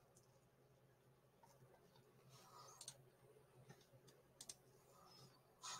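Faint computer mouse clicks, a few scattered short ticks with the loudest near the end, over a low steady hum.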